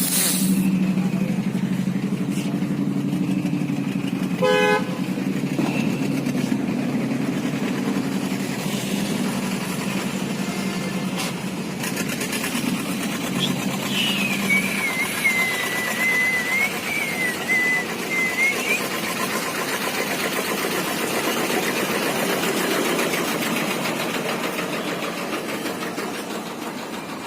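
Motorcycle engines running amid road traffic, with a short horn toot about four and a half seconds in. Midway there is a wavering high tone lasting about five seconds.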